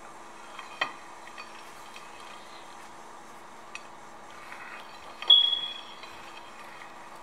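Steady low hum in the background with a few light clicks, then about five seconds in a sharp clink of crockery that rings briefly.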